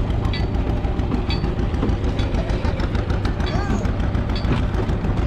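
Farm tractor running steadily as it pulls a hayride wagon: a low, even engine rumble with rapid pulsing, mixed with the wagon's rattle and wind on the microphone.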